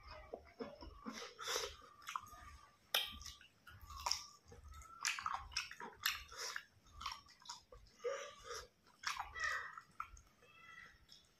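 Close-up wet chewing and lip-smacking of a mouthful of rice and pork curry, with irregular smacks and clicks.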